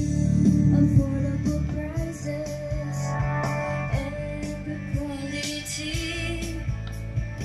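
A country song with guitar and singing, played from FM radio through a JVC R-X60 stereo receiver and its speaker. The bass is heavy for about the first second, then drops back as the receiver's graphic-equalizer sliders are moved.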